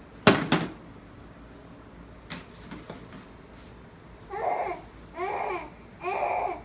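A sharp knock, then three short voice-like calls about a second apart, each about half a second long and bending up and down in pitch.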